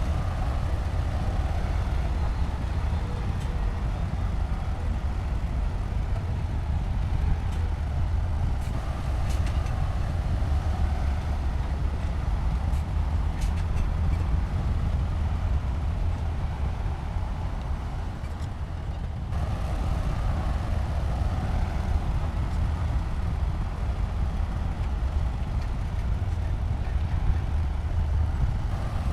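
Heavy diesel earthmoving machinery running steadily, a deep engine drone with a few faint clanks.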